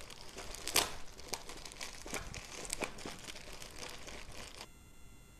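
Plastic courier mailer bag crinkling and being torn open by hand, with sharp rips, the loudest a little under a second in. The crinkling stops near the end.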